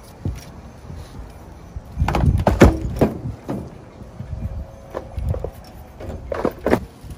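Footsteps on an RV roof with knocks and scrapes from handling a removed rooftop air conditioner unit, loudest in a cluster about two to three seconds in and again near the end.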